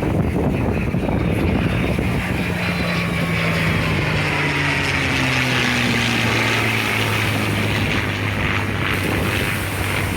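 An aircraft flying past, its engine note falling slowly in pitch as it goes by, heard over wind rumble on the microphone.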